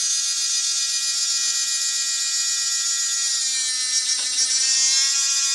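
Heavy-duty servoless landing-gear retract with metal gearing running: its small electric motor and geared drive whine steadily as it slowly swings the carbon-fibre leg up. The pitch drops slightly a little past halfway.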